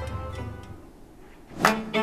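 Background music: a soft passage fades away, and about one and a half seconds in a new, louder cue starts with sharp, rhythmic notes.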